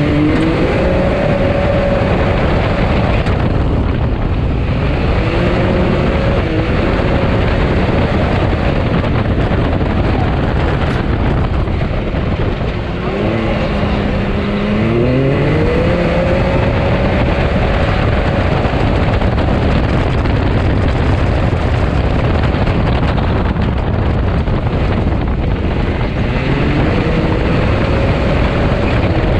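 Can-Am side-by-side's engine heard from inside the cab under hard driving. The revs climb and then hold, again and again, over a steady loud rush of noise.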